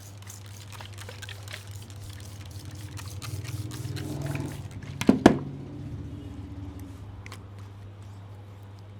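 Wet, squishing hand massage of a milk-soaked scalp, with small wet clicks, and a sharp double smack of hands on the head about five seconds in. A steady low hum runs underneath.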